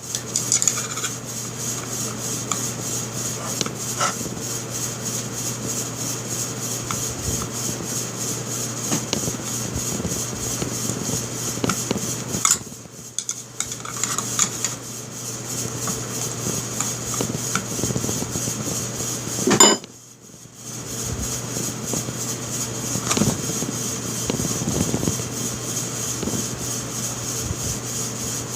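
Small clicks, taps and scraping of Stevens 320 pump-shotgun parts, the plastic slide and metal receiver, being handled and fitted together, over a steady background hum. One sharper, louder clack comes a little before twenty seconds in.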